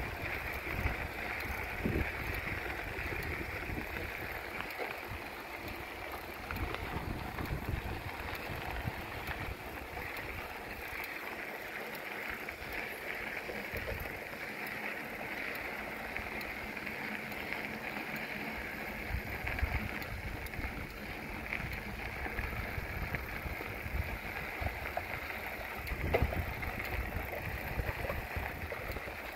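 Riding noise from a bicycle moving along the trail: a steady hiss of tyres and air, with wind buffeting the microphone in irregular low rumbling gusts.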